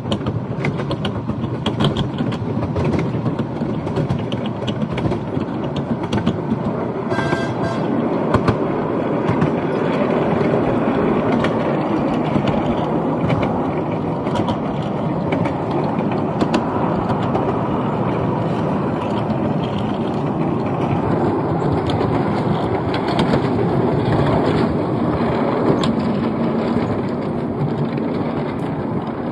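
Miniature railway carriages rolling along the track, heard from a seat on the moving train: a steady rumble of wheels on rails with frequent irregular clicks.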